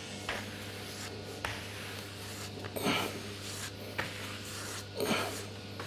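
Glue brush swishing across a wooden panel as glue is spread for veneering, in short strokes about once a second, over a steady low hum.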